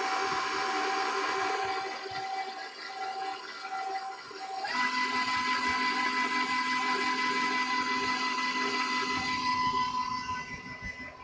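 Electric stand mixer running at low speed with its dough hook, mixing flour and eggs into pasta dough. Its steady motor whine steps up in pitch about five seconds in and drops in level near the end.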